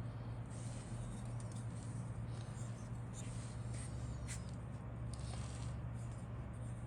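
Faint rustling, scraping and light ticks of things being handled, over a steady low electrical hum.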